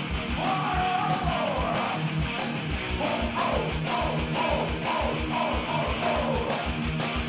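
Power metal band playing live at full volume. A distorted electric guitar lead plays bending, sliding notes over an even, driving kick-drum beat and rhythm guitar.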